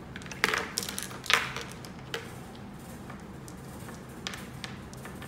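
Small stones clicking against each other and tapping onto paper on a table as they are set down one by one: two sharp clacks about a second apart, a lighter one after, then a few faint taps.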